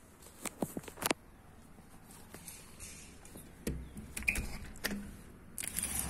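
A quick run of sharp clicks, then scattered knocks and a low thump as a curtained window is handled and opened. Near the end, outdoor background noise comes in.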